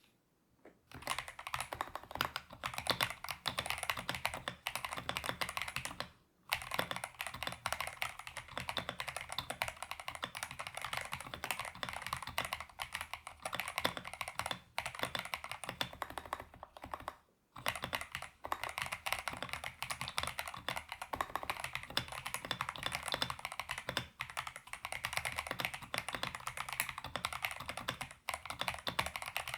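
Steady typing on a stock EPOMAKER Shadow-X mechanical keyboard with EPOMAKER Flamingo linear switches, gasket-mounted on a PC plate with full foams and PBT XDA-profile keycaps. The typing starts about a second in and stops briefly twice.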